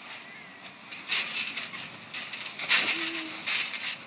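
Bubble wrap on a trampoline bed crinkling and rustling in several short bursts as weight shifts on it.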